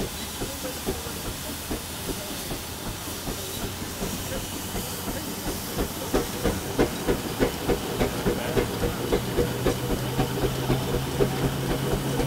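1906 steam engine running under belt load, driving a threshing machine: regular exhaust beats with a hiss of steam, about three a second, growing louder about halfway through. A steady low hum joins near the end.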